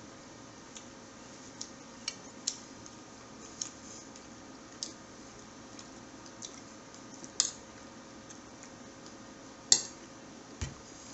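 Someone eating a meal: about a dozen light, irregularly spaced clicks and ticks, the sharpest near the end, over a faint steady hum.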